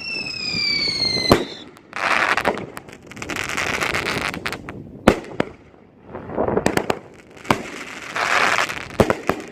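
Dominator 'Patriotic Dominance' 500 g 10-shot fireworks cake firing: several sharp reports, each followed by a swell of crackling stars. At the start, a high whistle falls in pitch and cuts off with a crack about a second in.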